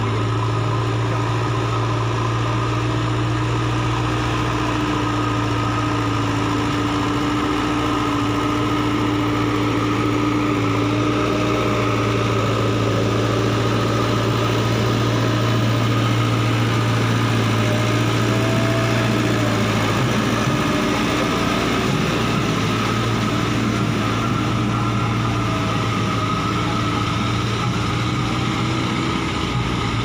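JCB 3DX backhoe loader's four-cylinder diesel engine running at a steady speed while the machine pushes and levels soil with its front loader bucket.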